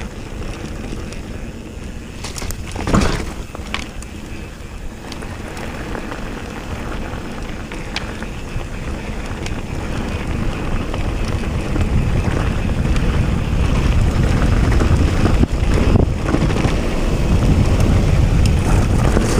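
Wind rumbling and buffeting on a GoPro action camera's microphone, growing louder about halfway through, with a single knock about three seconds in.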